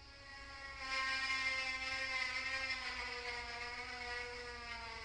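An unexplained 'strange sound' recorded outdoors: one long droning tone with many overtones, swelling in about a second in and slowly sliding lower in pitch. Its cause is unknown; speculation ranges from the aurora borealis to aliens.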